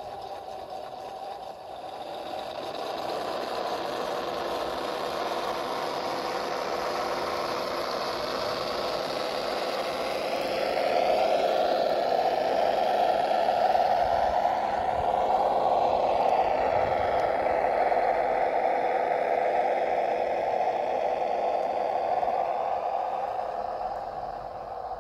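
RC scale GAZ-66 truck's Das Mikro TBS Mini sound module playing a simulated truck engine through small speakers, steady, growing louder about ten seconds in and easing off near the end. An electric motor and gear whine rises and falls in pitch around the middle as the truck drives.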